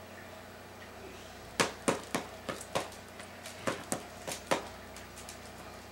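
Paddle ball being played: the rubber ball striking the paddle in a string of sharp taps. About five come in quick succession starting a second and a half in, then after a brief pause three more follow.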